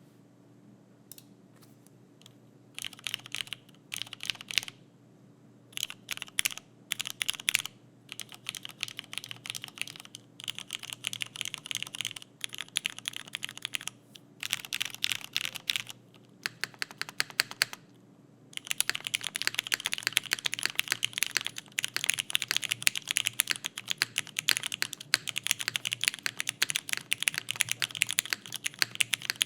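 Typing on an Owlab Vento 80 mechanical keyboard with broken-in, lubed Cherry MX Black linear switches on an aluminum plate, leaf-spring mounted with no foam, under GMK keycaps. Short bursts of keystrokes with brief pauses give way, a little past halfway, to continuous fast typing.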